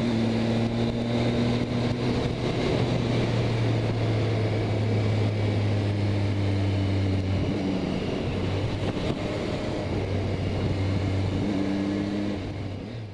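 Triumph motorcycle engine running at a steady speed while riding, heard as a constant drone under a rush of wind on the microphone. The engine note shifts slightly about halfway through.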